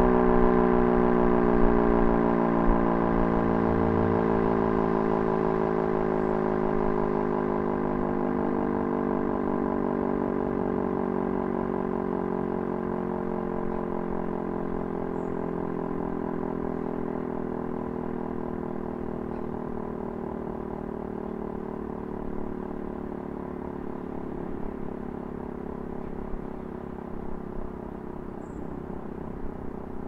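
E57 three-phase electric civil-defence siren winding down at the end of its signal: a wail with several overtones that sinks slowly in pitch and fades as the rotor coasts down.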